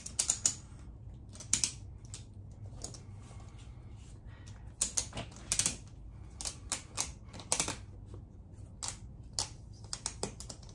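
Ratchet strap buckle being cranked by hand, giving sharp clicks in short irregular runs as the strap squeezes a motorcycle tire tight onto its rim.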